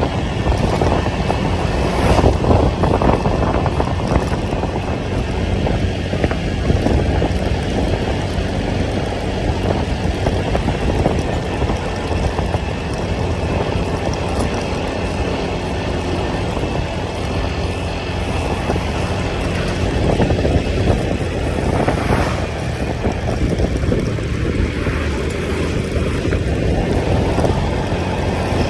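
Motorcycle on the move, with a steady engine rumble and road noise.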